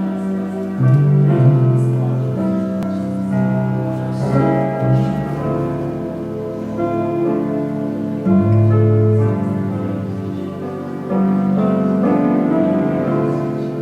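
Slow, sustained keyboard music: held chords on a piano or organ-like keyboard, changing every couple of seconds.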